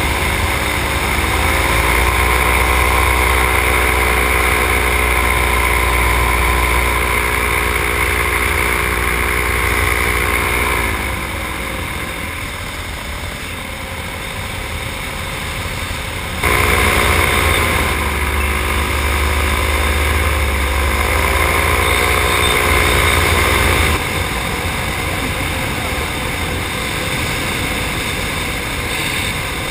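Paramotor trike engine and propeller running in flight, with wind rumble on the microphone. The engine note rises early on as the throttle opens. It eases off about a third of the way through, comes back abruptly past halfway, and drops back again about four-fifths of the way through.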